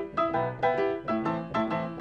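Piano music: a steady run of struck notes and chords, several a second.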